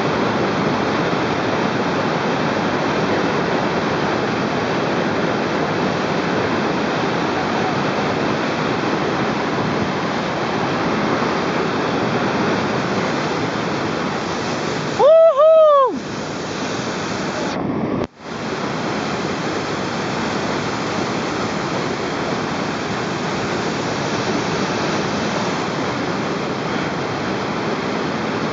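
Steady rush of a river's whitewater rapid churning around a raft surfing in the hole. About halfway through a person gives one loud shout of about a second, rising and falling in pitch. A couple of seconds later the sound cuts out for an instant.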